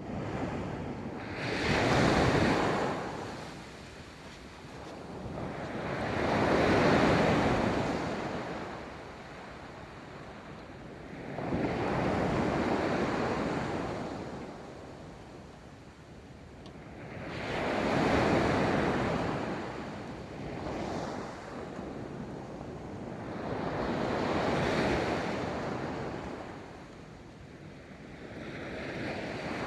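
Ocean waves breaking and washing up a beach, one after another about every five to six seconds, each swelling to a rush and fading before the next.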